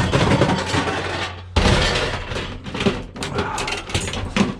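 Knocks and metal clatter of a microwave oven's sheet-metal case and parts being handled and turned over as it is stripped for scrap. A steady low hum runs for the first second and a half, then stops suddenly, leaving scattered knocks.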